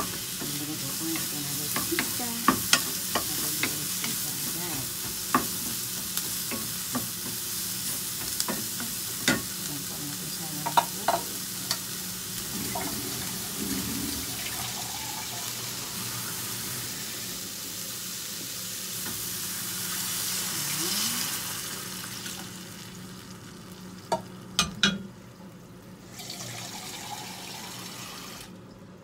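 Diced onion and carrot sizzling in hot oil in a frying pan, with scattered sharp clicks of a spatula knocking and scraping the pan as they are stirred. About three-quarters of the way in the hiss briefly rises, then the sizzling dies down as water goes into the pan, leaving a few clicks and a quieter simmer.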